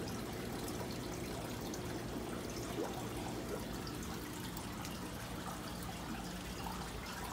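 Steady trickle of aquarium water from the tanks' filtration, with a low hum running underneath.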